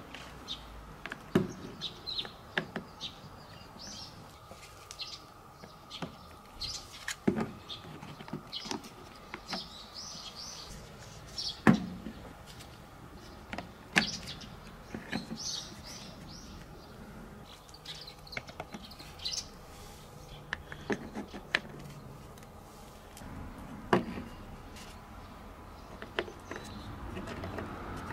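Wooden track pieces and plastic building blocks of a marble run being handled and fitted together, giving scattered knocks and clicks, while small birds chirp in the background.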